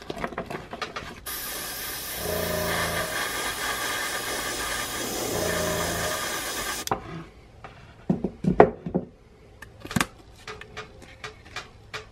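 Airbrush spraying paint through a stencil: a steady hiss of air and paint that starts about a second in, runs for about five and a half seconds and cuts off sharply. It is followed by a few light knocks and clicks.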